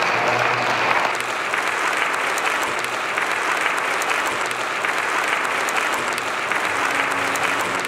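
A church congregation applauding, many people clapping together at a steady level.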